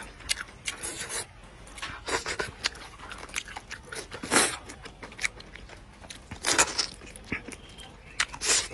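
Close-up eating sounds of a person chewing chicken soup-soaked rice, with irregular small clicks and several brief louder noisy bursts.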